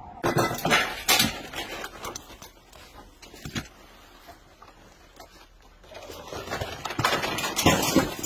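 Search-and-rescue dog working through the rubble of a collapsed building: a few sharp knocks and clatters of loose debris in the first second or so, a quieter stretch, then denser clattering and scraping of rubble near the end.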